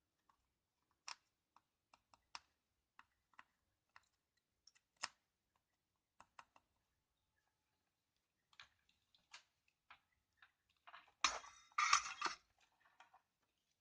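Scattered light clicks and taps from handling an opened Logitech G610 mechanical keyboard and pushing on its loosened key switches, with a louder burst of clatter about eleven seconds in.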